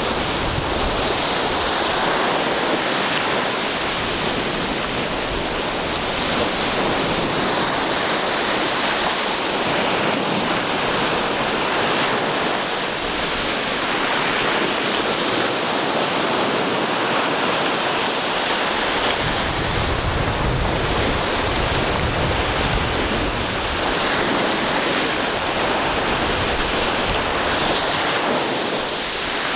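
Ocean waves breaking and washing on the shore in a steady, continuous rush that swells and eases, with a low rumble of wind on the microphone about two thirds of the way through.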